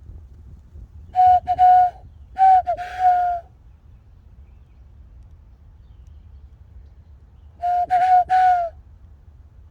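A person whistling bird calls in imitation of a bird the whistler hopes is a northern cardinal: three short phrases of steady, breathy, fairly low notes, two close together near the start and one near the end.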